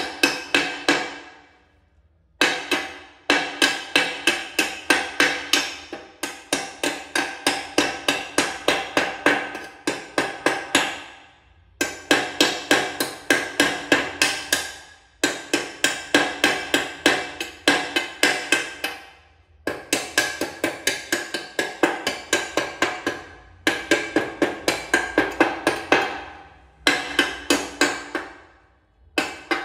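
Rapid hammer strikes with a bright ringing tone, about four a second, in runs of several seconds broken by short pauses.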